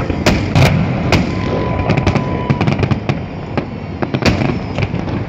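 Holiday fireworks salute bursting: irregular sharp bangs, a few loud ones among many smaller crackling pops, with a faint thin whistle in the middle.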